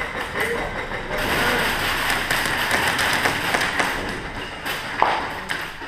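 A wheeled cart rattling and rumbling as it is pushed, with a sharp knock about five seconds in.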